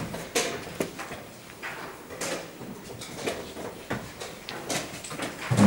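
Wooden chess pieces set down on a wooden board and the buttons of a digital chess clock pressed, a quick string of sharp clicks and knocks, with a louder thud right at the end.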